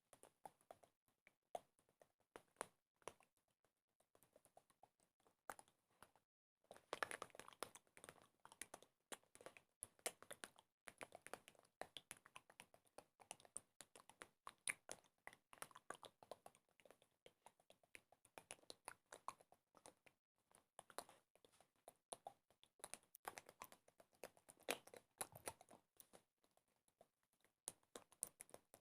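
Quiet, rapid small clicks and taps, scattered for the first six seconds, then coming thick and fast without a break.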